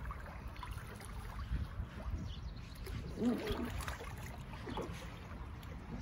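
Water splashing and sloshing in an inflatable backyard pool as a child swims across it, over a low rumble. About three seconds in there is a brief voice-like sound.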